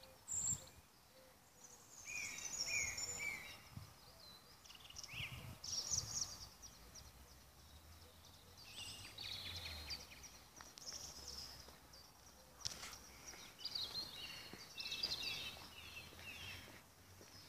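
Small songbirds singing and chirping in short repeated phrases, over a faint steady low rumble.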